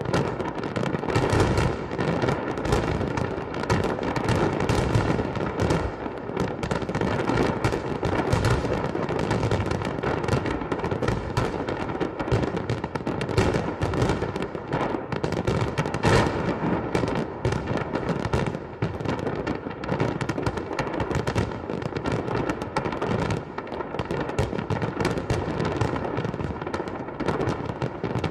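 Fireworks going off in a rapid, continuous barrage of crackles and bangs.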